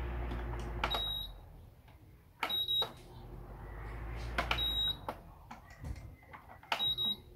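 Electric standing fan's control panel beeping as its buttons are pressed: about four short high beeps with button clicks, roughly two seconds apart, over the low hum of the fan, which drops away about two seconds in.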